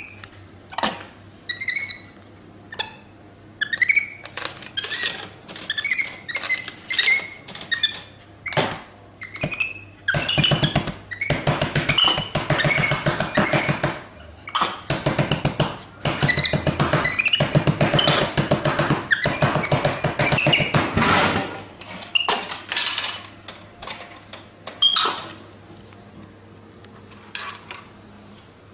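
Monkey at a vending machine: high squeaks, sharp knocks and clicks, and a long stretch of rapid rattling clatter in the middle.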